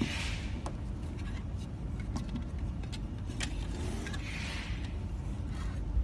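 Steady low background rumble with scattered small clicks and two short hisses, about half a second each, from wires and parts being handled on an LED light board.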